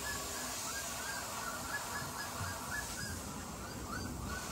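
Beagle puppies whimpering: a string of short, high whines, about three a second.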